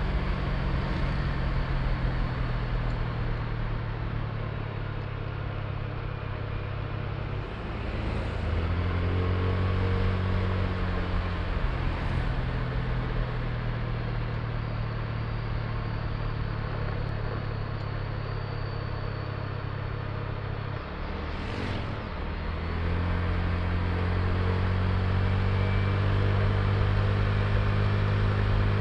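Honda Click i scooter's single-cylinder engine running under way, with wind and road noise over it. Twice, about seven seconds in and again about twenty-one seconds in, the engine note drops briefly and then climbs again as the throttle opens.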